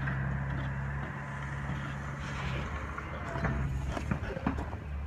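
An engine running at a steady speed, which stops about halfway through; after it come scattered short clicks and crunches.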